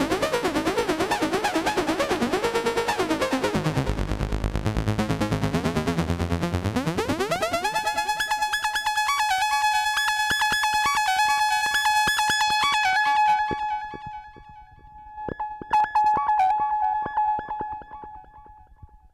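A prototype Seeeduino Xiao-based wavetable VCO playing a dense, buzzy, rapidly pulsing tone from its overflow-folded wavetable. About seven seconds in it sweeps upward into a thinner, brighter pitched tone of repeated short notes. That tone drops away, returns briefly, and fades out near the end.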